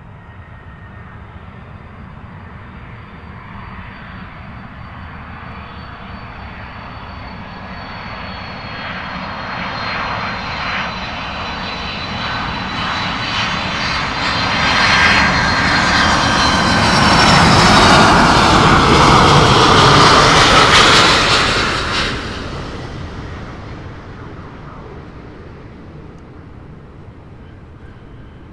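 Boeing 767-300ER freighter's two GE CF6-80C2 turbofan engines on final approach, passing close by: a jet rumble with a high fan whine that builds for about twenty seconds. The whine slides lower as the plane goes by, and the sound drops off sharply at the loudest point, then fades.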